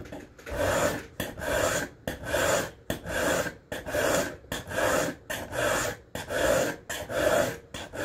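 Kayuga single-bevel steel broadhead being draw-filed on a mill file: about nine even rasping strokes, a little more than one a second, grinding the bevel back to a sharp edge.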